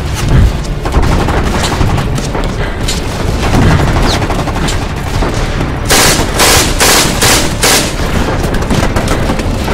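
Battle sound effects of gunfire: rapid rifle and machine-gun shots, with a heavy low boom just after the start and a run of about five loud shots about six seconds in.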